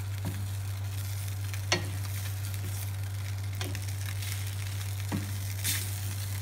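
Shrimp and broccoli stir-fry sizzling in a stainless steel pan as its cornstarch-thickened sauce comes to a boil, stirred with a wooden spatula. There are a few sharp taps of the spatula against the pan over a steady low hum.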